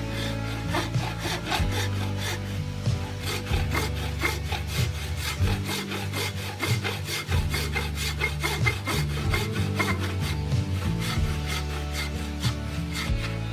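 Rapid, rhythmic back-and-forth strokes of a hand tool working wood, about four a second, over background music with a low bass line.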